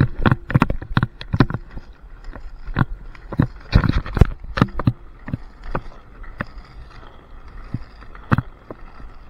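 Inline skates rolling fast over rough, cracked asphalt: a low rumble with many irregular sharp clacks and knocks, coming thick for the first five seconds and more spread out after, with one hard knock near the end.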